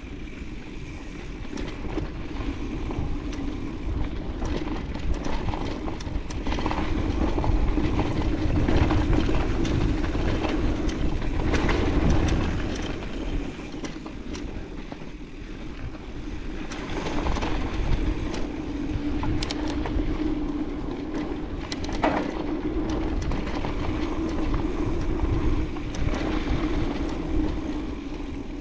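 Mountain bike riding down a dirt trail, heard from a chest-mounted GoPro: steady rolling noise from the tyres, low wind rumble on the microphone that swells as the speed picks up, and scattered knocks and rattles from the bike over bumps.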